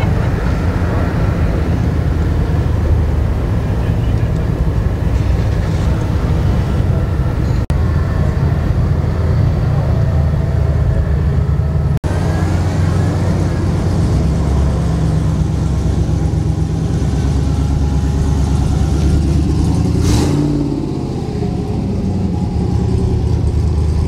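Car engine idling with a deep, steady exhaust rumble. About twenty seconds in the sound shifts briefly, with a short rise in pitch, before settling again.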